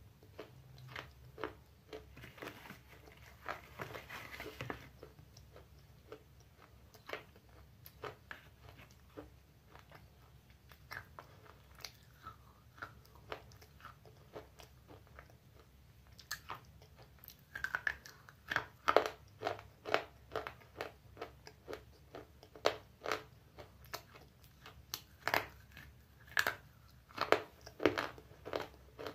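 Close-up mouth sounds of a person biting and chewing hard, brittle baked clay, with sharp crunches coming irregularly. The crunches come faster and louder in the second half.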